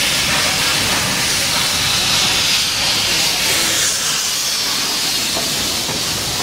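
Steam hissing loudly and steadily from a 1945 Jung tender steam locomotive on 750 mm narrow gauge as it moves slowly past close by, wrapped in its own steam, easing slightly after about four seconds.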